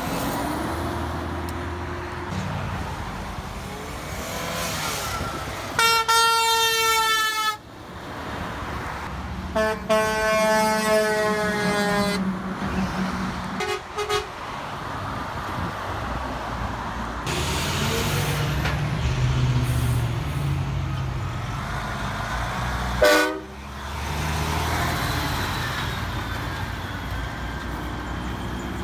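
Heavy diesel trucks passing close by, their engines rumbling. About six seconds in, a truck horn sounds a long blast, and a few seconds later a second, longer blast on two tones.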